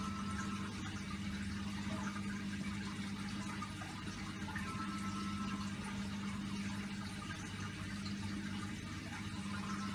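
Steady low hum under a constant, watery hiss, unchanging throughout and cutting off abruptly at the end.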